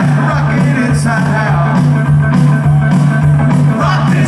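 Live rockabilly band playing at full volume: hollow-body electric guitar, upright bass and a stand-up drum kit with snare and cymbal, the bass notes and drum beat running steadily.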